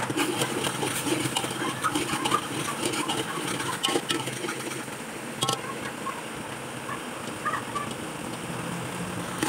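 A steel ladle stirring chopped tomatoes in hot oil in an aluminium pot, scraping and clicking against the metal, over a steady frying sound. The clicks come often in the first half and thin out later.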